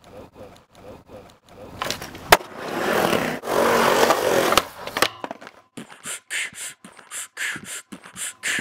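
Skateboard on concrete: a loud stretch of wheels rolling with a sharp clack of the board about two seconds in, between runs of evenly spaced short taps, about three a second.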